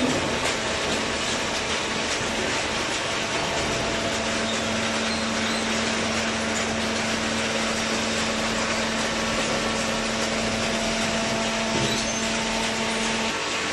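High-speed cardboard baler running: steady industrial machine noise. A steady hum comes in a few seconds in and cuts off near the end.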